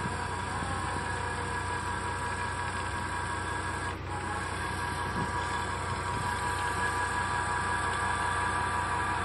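Crawler-mounted ground-screw driver running steadily as it installs a screw pile, its engine and drive giving a constant mechanical hum with steady tones; the sound briefly dips about four seconds in.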